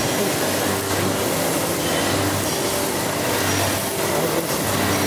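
Wire-wheel rust-removal machine running: a steady low motor hum under a dense, even hiss from its spinning wire wheels.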